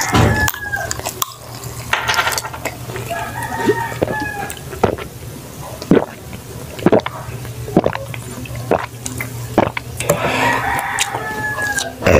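Close-up eating sounds: chewing and crunching with sharp clicks. A rooster crows in the background a few times, loudest near the end.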